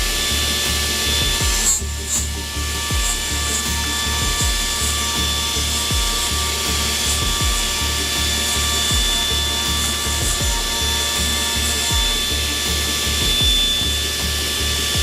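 Kitamura HX250iG horizontal machining centre cutting metal: a steady spindle whine over a rattling chatter from the cutter.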